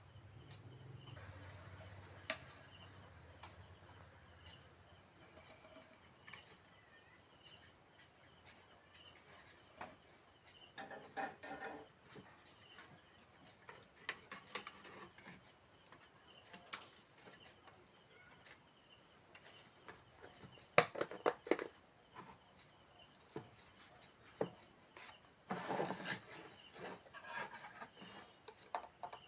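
Faint steady high chirring, like insects in the background, with scattered small clicks and knocks; the sharpest click comes about two-thirds of the way through.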